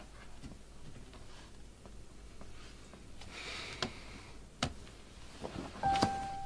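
Quiet room with soft handling sounds: a brief rustle, then a laptop lid shut with a sharp click about four and a half seconds in, followed by a few small knocks as someone gets up from a desk chair. A sustained music note comes in near the end.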